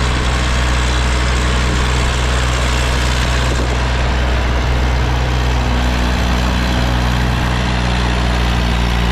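Eicher tractor's diesel engine running steadily under load, pulling a trolley on a soil ramp. Its note shifts slightly about six seconds in.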